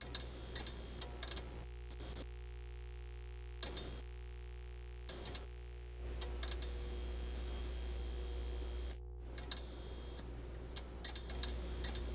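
Electric hum of a neon sign, broken by sudden crackling buzzes as the tubes flicker on and off: short bursts at first, a longer buzz midway, and quicker flickers near the end.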